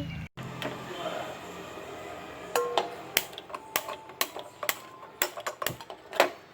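Metal pot and utensils knocking and clinking: about a dozen irregular sharp clinks over the second half, some ringing briefly, as a pot of water is handled and set on the stove to boil.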